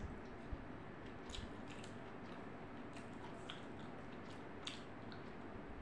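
A person chewing food with soft, wet mouth clicks and smacks scattered through, over a faint steady hiss.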